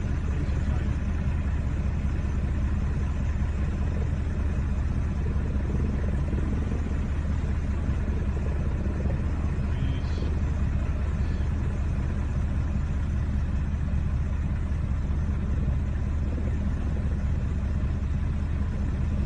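Deep, steady rumble of a powder-snow avalanche pouring down the mountainside.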